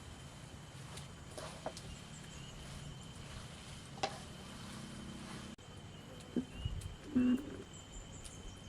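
Quiet rural background with a steady, thin high insect drone, broken by a few light clicks and some low knocks near the end.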